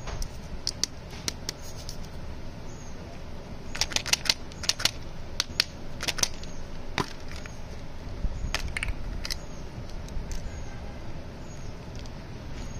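Hands handling plastic lollipop toys and wrappers: cellophane crinkling and hard plastic capsule parts clicking, an irregular scatter of sharp clicks that bunch together a few times.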